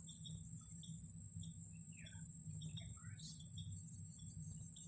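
Wild birds chirping in short, scattered calls, some gliding down in pitch, over a constant high-pitched whine and a steady low hum from a damaged audio cable.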